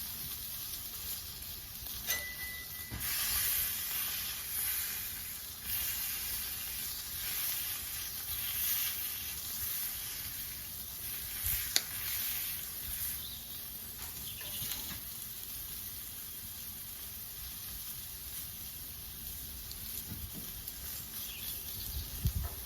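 Eggs frying on a Blackstone flat-top griddle: a steady sizzle that swells and eases, with a couple of sharp clicks.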